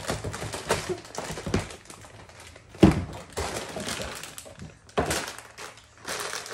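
Plastic snack bags rustling and crinkling as they are handled and pulled from a cardboard box. Several dull thumps come through the rustle, the loudest about three seconds in and another about two seconds later.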